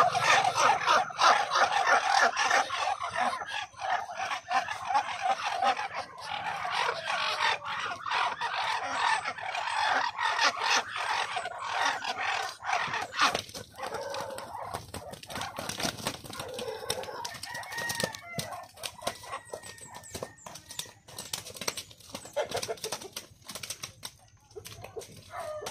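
A flock of farm poultry clucking and calling in a dense, rapid chatter that thins out about halfway through, among many short clicks.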